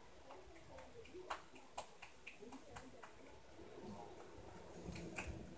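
Scattered sharp knocks and clicks, about half a dozen in the first three seconds, then a few dull thumps near the end, with faint muffled voices: apartment noise which the recorder takes for the upstairs neighbours.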